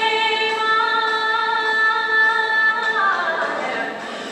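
A song with a woman singing one long held note that slides down in pitch about three seconds in.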